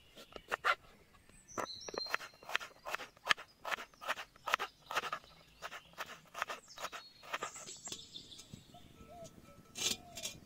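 Kitchen knife slicing shallots on a wooden cutting board: a run of quick knocks of the blade striking the board, about two to three a second. Birds chirp briefly in the background.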